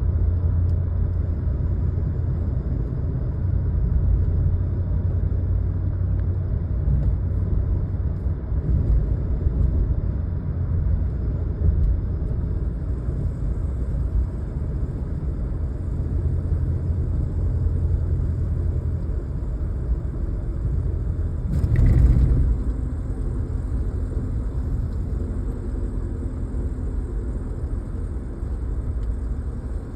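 Truck running with a steady low rumble, carrying the noise whose cause the owner cannot identify. Faint high steady tones sit above it, and there is one louder thump about 22 seconds in.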